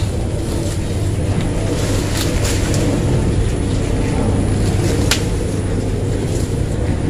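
Leaves and branches rustling, with a few sharp crackles of twigs, as someone pushes through dense brush, over a steady low rumble.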